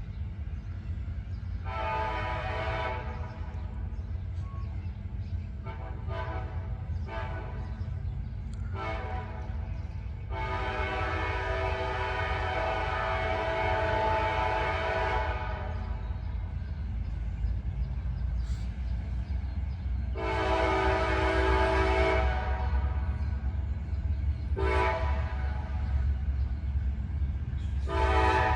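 CSX freight locomotive's air horn sounding a series of blasts, long and short, one held about five seconds, over the low rumble of the approaching diesel locomotive, which grows louder in the second half. The horn sequence is a crossing warning for the nearby grade crossings.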